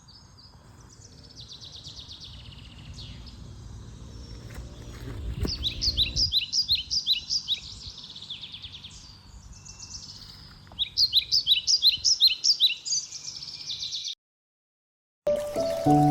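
Small birds chirping in fast repeated runs of high notes, loudest in two bouts about five seconds in and from about eleven seconds in, with a low rumble under the first bout. The sound cuts out suddenly near the end, and music begins.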